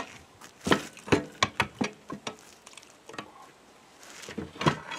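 Irregular knocks and clanks of metal on metal as the International Harvester B414 hydraulic lift unit is pried and rocked loose from the rear-end housing and worked up off its locating dowels. The knocks come in a cluster in the first couple of seconds and again near the end.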